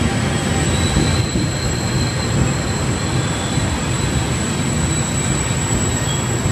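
Trenitalia double-deck regional train rolling slowly along the platform, a steady rumble of wheels on rail with a thin, high-pitched wheel squeal over it.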